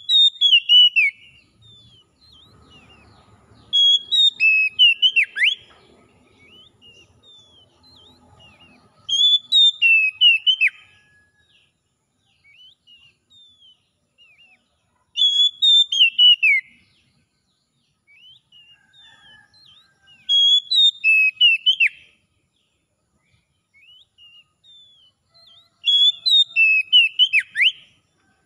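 Oriental magpie-robin singing: six loud whistled phrases, each a quick run of sharp notes with falling sweeps lasting about a second and a half, repeated every five to six seconds, with soft chirps in between.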